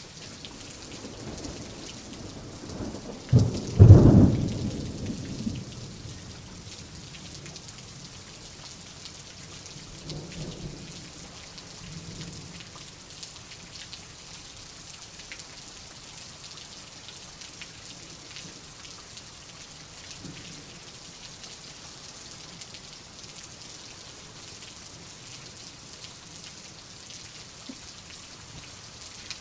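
Steady rain hiss with a loud clap and rumble of thunder about four seconds in, followed by fainter distant rolls of thunder around ten and twenty seconds.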